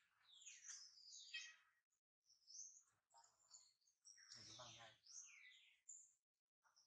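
Faint animal calls: a run of high chirps and squeaks that slide downward in pitch, with one longer, fuller squeal about four seconds in.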